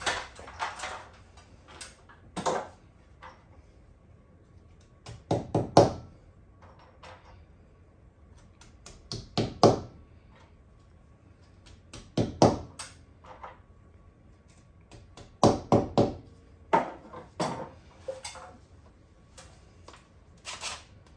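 Hammer knocking wall anchors into holes drilled in the wall, in short groups of two or three sharp blows with pauses between.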